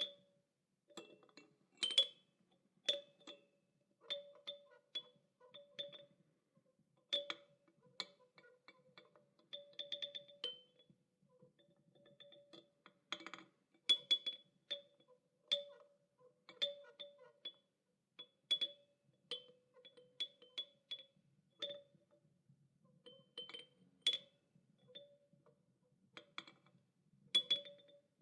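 Child's toy chime clinking and clanking: irregular light strikes, about one or two a second, each ringing briefly on the same pair of tones, one low and one high.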